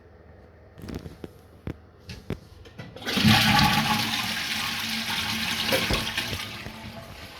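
Toilet flushing: a few light clicks and knocks, then about three seconds in the loud rush of the flush starts and slowly tapers off.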